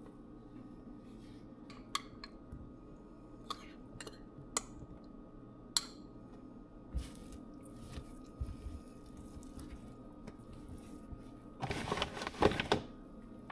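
Dishes and utensils clinking: a few sharp, separate clinks over the first several seconds, then a louder clatter of several knocks near the end.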